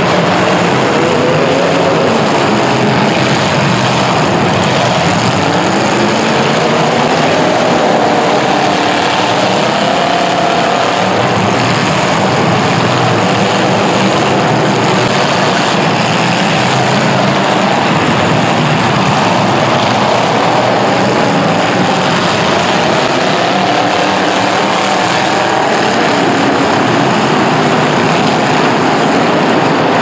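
Several demolition derby cars' engines running and revving at once, pitches rising and falling, in a loud, continuous din that echoes around an indoor arena.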